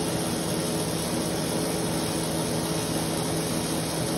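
Metal lathe running steadily with a constant hum and a few held low tones, turning a reamer that opens up the bores of brass trumpet valve casings.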